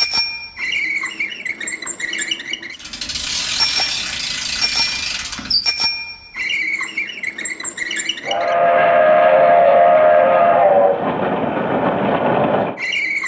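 A train whistle sounds a held chord of several tones for about four seconds in the second half, fading toward the end. Before it there are a short repeating jingle and two stretches of loud hiss-like noise.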